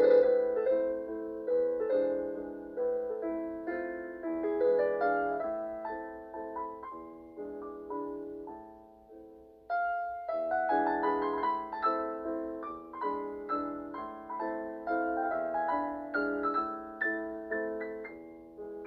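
Background piano music: a gentle melody of struck notes that ring and fade, in two phrases with the second starting about ten seconds in.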